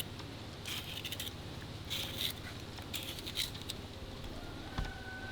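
Soft, irregular crackling and sizzling from fish frying in butter and oil in a pot over an open fire, over a steady low hum.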